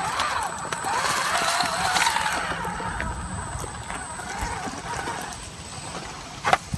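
Electric motor and gear train of an RC scale rock crawler whining at crawl speed, its pitch wavering up and down with the throttle and fading over the first few seconds. A single sharp click near the end.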